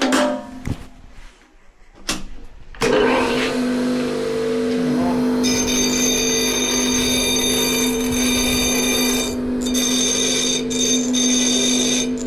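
Grinder motor starts with a steady hum about three seconds in. From about five seconds in, a steel hinge shaft is held and rotated against the grinder to sharpen a point, adding a high-pitched grinding whine that breaks off briefly a few times near the end.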